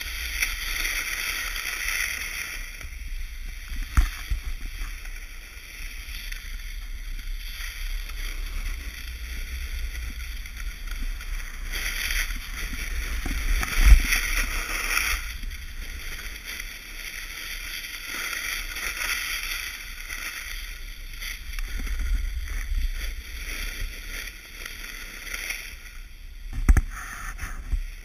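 Snowboard edge scraping and hissing over groomed snow on a downhill run, with wind rumbling on the microphone. Three sharp knocks break in, the loudest about halfway.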